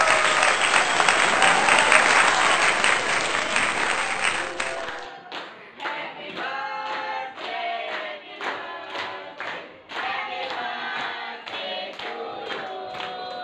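A class of students clapping and cheering together, then, after an abrupt change about five seconds in, singing in chorus while clapping along on the beat, about two claps a second: a group birthday song.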